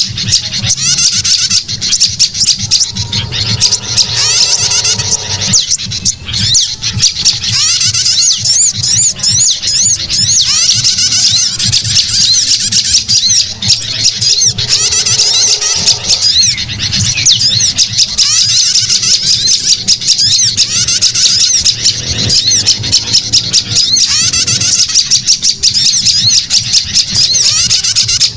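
A dense chorus of small songbirds chirping rapidly and high-pitched without pause: a bird-lure (pikat) call recording. A lower call joins in twice, about three seconds in and again about fourteen seconds in, over a steady low hum.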